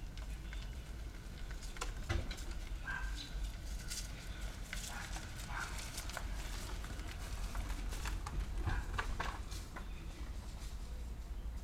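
Electric-converted Hyundai Sonata rolling slowly past, with no engine running; its tyres crackle and pop over dry leaves and grit, a scatter of sharp clicks over a low rumble.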